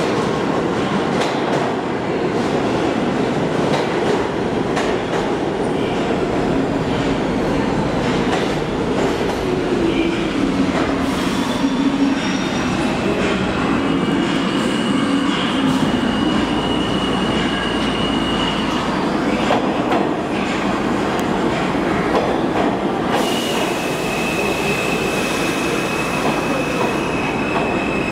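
Ten-car Alstom R160 subway train pulling into the station and slowing along the platform: a steady rumble of wheels on rail with clicking over the joints, and a low motor whine falling in pitch as it slows. A high steady squeal comes in about halfway through for several seconds, and returns a few seconds before the end.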